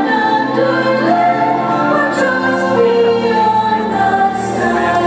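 Fireworks-show soundtrack music with a choir singing over sustained accompaniment.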